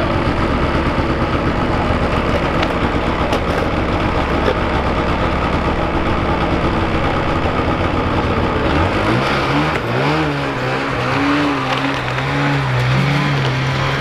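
A motor vehicle engine idling steadily. About nine seconds in it revs up and runs on at a higher, wavering pitch.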